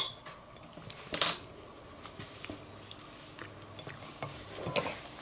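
A person chewing a mouthful of soft cake close to the microphone, with short mouth clicks and smacks; the louder sounds come right at the start, about a second in, and near the end.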